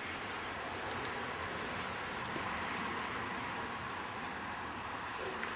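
Insects chirring outdoors: a high-pitched pulsing chorus repeating a few times a second, broken near the start by about a second of unbroken high buzzing.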